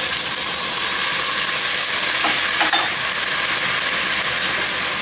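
Shallots, carrot and garlic sizzling in hot oil in a stainless steel pot: a steady frying hiss.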